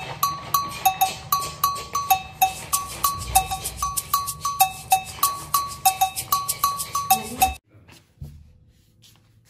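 Background music with a quick, even beat of sharp clicks and short ringing notes on two alternating pitches, cutting off abruptly about seven and a half seconds in.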